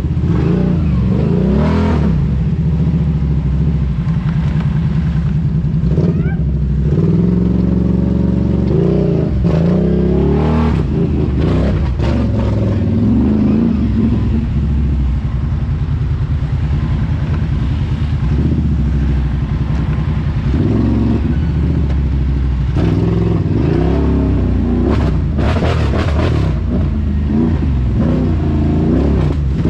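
ATV engine running close by, its pitch rising and falling repeatedly as the throttle is worked. Scattered knocks and clatter run through it.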